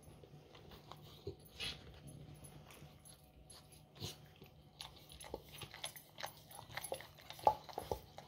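Beagle sniffing around and nosing at a stainless steel bowl: short quiet sniffs and small clicks and taps that come thicker in the second half as its muzzle goes into the bowl.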